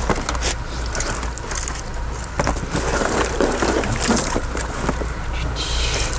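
Stripped car wiring loom being handled and packed into a cardboard box: irregular rustling and clicking of wires and plastic plug ends against cardboard, over a steady low hum.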